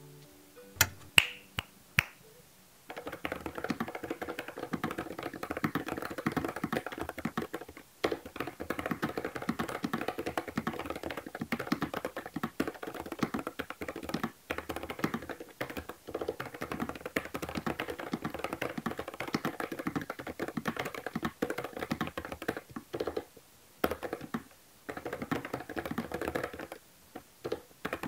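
Fast typing on a NuPhy Air75 low-profile mechanical keyboard with Gateron Brown switches: a dense run of keystroke clacks with a few brief pauses. A few single clicks come in the first two seconds before the typing starts.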